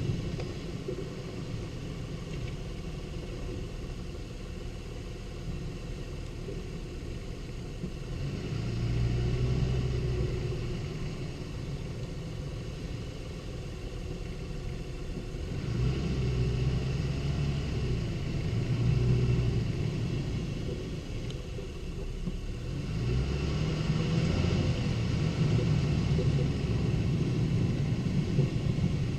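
Lexus IS250 driving, a steady low rumble of engine and road noise that swells louder three times.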